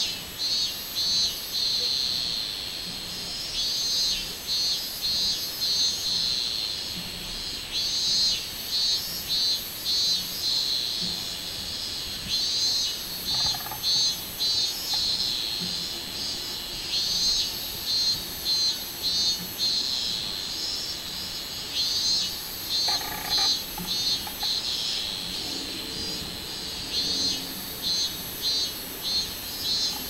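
Minmin-zemi cicada (Hyalessa maculaticollis) singing: repeated phrases of fast, high pulses, rising and falling in loudness, over a steady high buzzing hiss.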